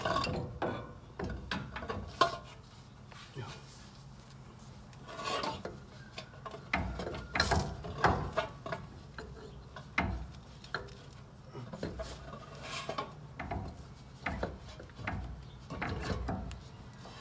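Irregular metal clinks, knocks and scraping as a new CV axle is handled and guided into the front wheel hub and steering knuckle by hand.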